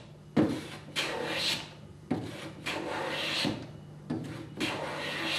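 A metal bench plane pushed along the edge of a rough-sawn board in about six strokes, roughly one a second. Each stroke starts sharply and hisses as the blade cuts. The shavings coming off are very light because the edge is not yet flat.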